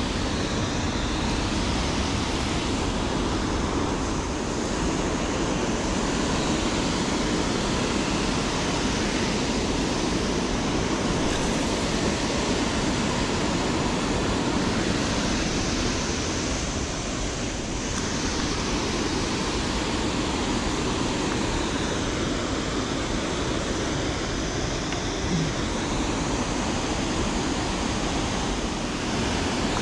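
Steady, even rush of water pouring over a dam spillway, a constant wash of noise with no break.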